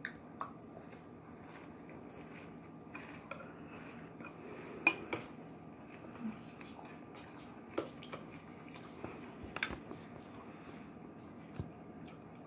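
Spoon clinking and scraping against a cereal bowl now and then as cereal is eaten, the sharpest clink about five seconds in, over a steady low hum.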